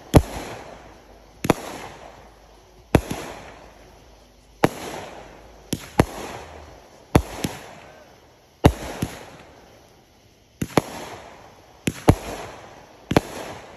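Consumer firework cake firing shot after shot of gold-star bursts: a sharp bang about every second and a half, some in close pairs, each fading away over about a second.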